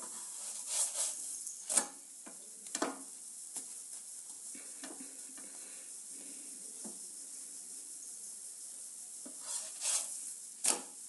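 Puran poli frying in ghee in a frying pan, a steady sizzle, while a slotted spatula scrapes and knocks against the pan several times. The sharpest knocks come about two seconds in and near the end, as the flatbread is turned.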